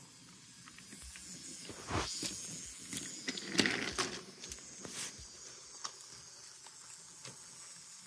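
Battery-powered toy train running along wooden track: faint rattling and clicking of its wheels and cars over the track, with a few louder knocks about two, four and five seconds in.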